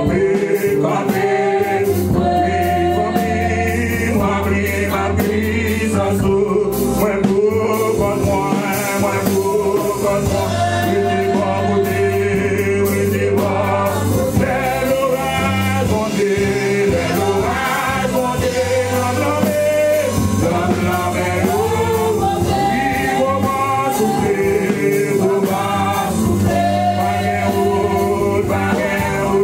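A gospel worship song: a male lead and women singers sing together in harmony over steady low instrumental backing notes.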